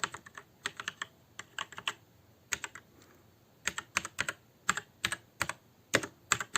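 Typing on a ZET GAMING Blade mechanical keyboard with Kailh Red linear switches and PBT keycaps, heard from about head height: irregular runs of quick keystroke clacks, the keys pressed all the way down.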